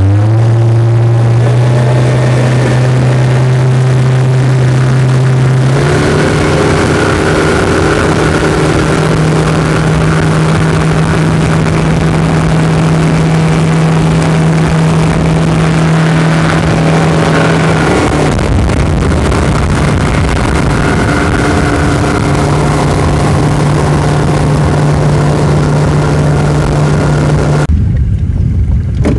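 A small boat's engine running under way, its pitch stepping up and down with the throttle, then cutting off sharply near the end.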